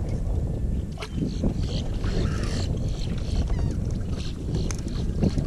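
Wind rumbling on the microphone on a kayak on open water, with a few sharp clicks and a short splash of water about two seconds in as a hooked fish is brought alongside.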